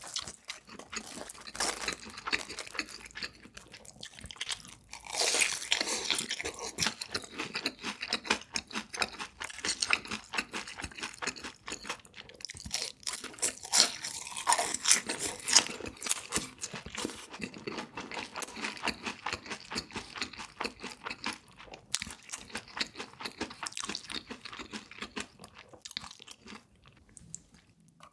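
Close-miked eating: a person biting and chewing crunchy food, with dense crisp crackles and wet chewing, the loudest crunching bites coming about five seconds in and again around the middle.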